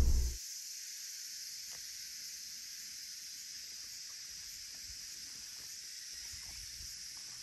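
A car's cabin rumble cuts off just after the start. Then comes a faint, steady high-pitched hiss of insects, with a few soft ticks.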